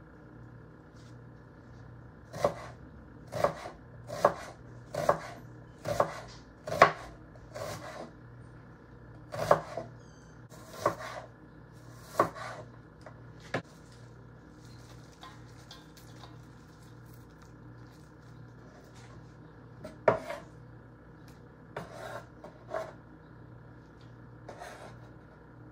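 Kitchen knife slicing a red onion on a wooden cutting board: about a dozen separate strikes on the board, roughly one a second, then a pause and a few more strikes later on. A faint steady hum sits underneath.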